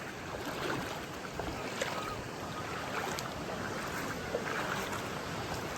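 Steady rushing of flowing water from a forest stream, with a few faint ticks.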